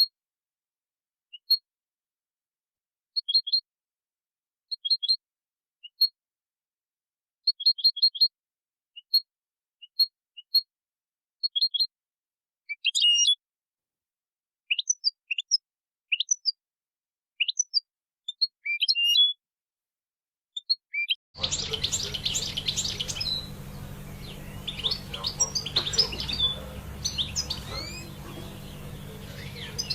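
European goldfinch chirping and twittering: short separate high chirps and quick trills at first. From about two-thirds of the way through comes a denser, faster run of twittering song over steady background noise.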